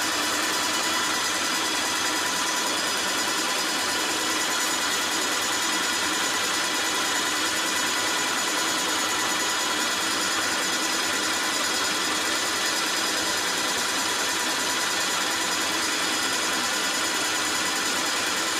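Graco airless paint sprayer running steadily, its electric pump whirring with a steady high whine while the gun sprays a continuous jet of liquid with a hiss.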